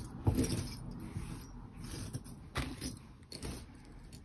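Metal rings and chains clinking and scraping together as loose jewelry is handled and shuffled on a mat, with a few sharp clinks, the loudest just after the start and around two and a half seconds in.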